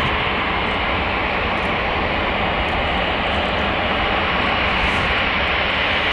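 Airplane engines running with a steady, unbroken noise.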